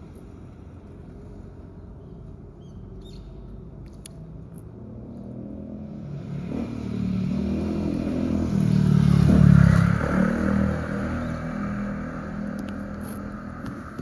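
A motor vehicle passing unseen: its engine swells from about five seconds in, peaks near ten seconds with a slight drop in pitch, then fades away.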